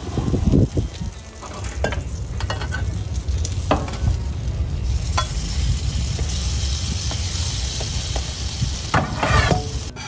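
Cinnamon rolls sizzling in oil on a hot flat-top griddle, a steady frying hiss, with a metal smash press and spatula scraping and tapping against the steel griddle top a few times and a quick run of scrapes near the end.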